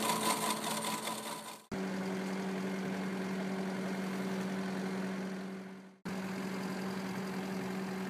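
A hydraulic concrete milling attachment cutting into the slab face, fading out after about a second and a half. Then a skid steer's engine runs steadily at a constant speed, with a brief dropout about six seconds in.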